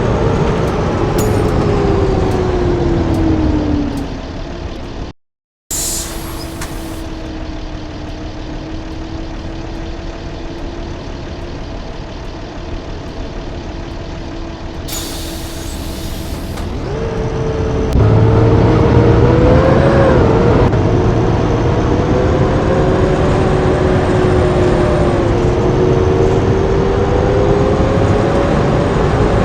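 Blue Bird bus engine slowing down and settling to a steady idle, then a sharp hiss of air brakes about halfway through. The engine then pulls away, its pitch rising, with dips as it changes gear.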